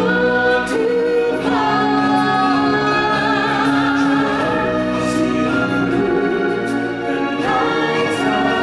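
Stage-musical music: singers holding long notes with vibrato over a full orchestral backing.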